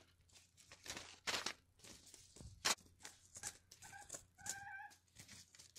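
Paper seed packets being handled and shuffled, rustling and crinkling in short sharp bursts, with two brief chicken clucks about four seconds in.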